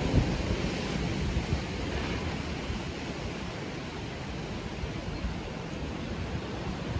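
Steady rush of wind and surf, with wind rumbling on the microphone.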